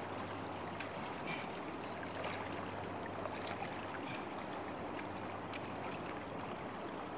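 Steady noise of the water's edge, with faint small splashes and clicks as hands work among rocks in shallow water. A faint low hum runs underneath.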